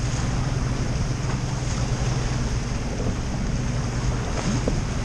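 Outboard motor running steadily as the boat moves along, a constant low hum, with wind and rushing water from the wake.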